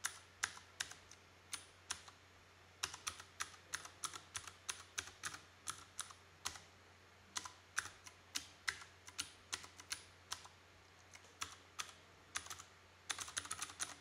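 Keys of a Vortex Race 3 mechanical keyboard being pressed: single, irregularly spaced key clicks with short pauses, turning into a quick run of typing near the end.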